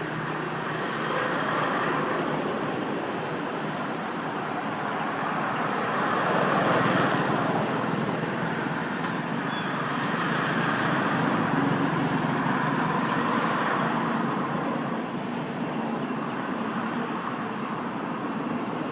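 Steady hum of road traffic, swelling a little partway through, with a few faint sharp ticks.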